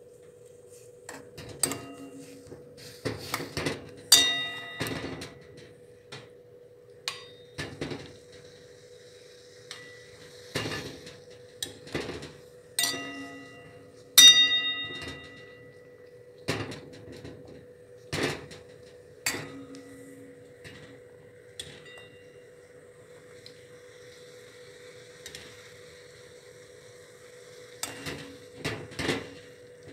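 Metal spoon stirring liquid in a metal pan, clinking against the pan at irregular intervals, some strikes ringing briefly. A steady hum runs underneath.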